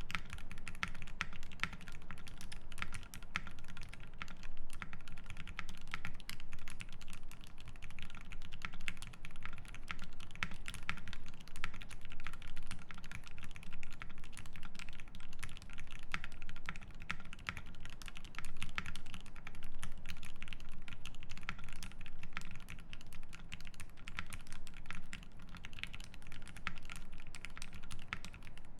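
Continuous fast typing on a Voice65 mechanical keyboard with lubed Gateron Ink Black linear switches in an aluminium plate, under GMK keycaps: a dense, steady run of keystrokes.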